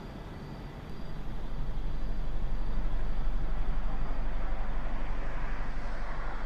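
A low, steady rumble with a hiss over it. It swells about a second in and holds loud.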